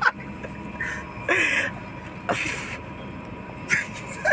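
Steady hum inside a car, with a few short rustling noises and one brief hiss about two and a half seconds in.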